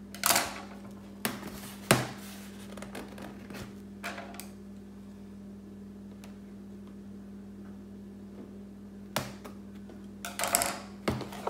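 Scissors slitting packing tape on a large cardboard box, with several short scratchy cuts and knocks against the cardboard, the longest cluster near the end.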